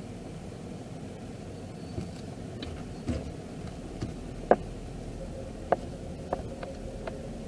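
Steady low rumble of a car heard from inside the cabin, with a few short sharp clicks on top, the loudest about four and a half seconds in.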